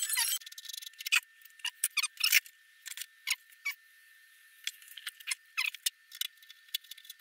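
Irregular small clicks, ticks and rustles of hands handling motorcycle wiring and small parts, with a faint steady high-pitched whine underneath.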